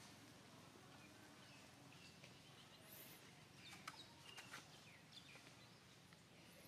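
Near silence: faint outdoor ambience with a scattering of short, faint high chirps and a few soft clicks.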